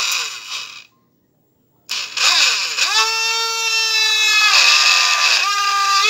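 Mini blender's small DC motor, wired straight to a 12-volt battery, spinning up with a rising whine and cutting out under a second in. It then spins up again about two seconds in and runs at a steady high whine.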